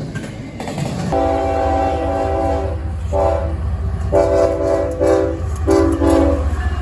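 Diesel locomotive's multi-tone air horn sounding a series of blasts, a long one about a second in followed by a short one and two more, over the steady low rumble of the train.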